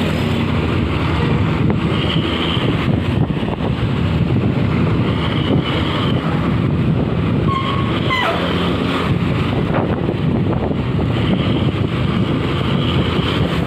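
A road vehicle driving at speed: steady engine and road noise, with wind buffeting the microphone.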